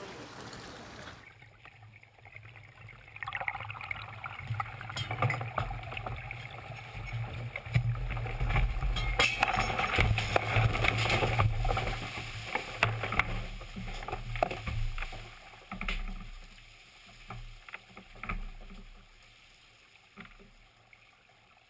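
Inside a yacht's cabin during a capsize: seawater rushing and streaming in over the interior with a low rumble, and scattered knocks and clatters. It swells through the middle and dies away near the end.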